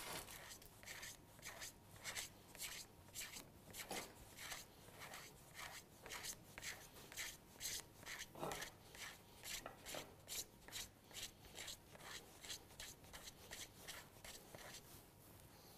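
A peeler scraping the edge of a slab of dark chocolate into shavings: faint, rhythmic rasping strokes, about two to three a second.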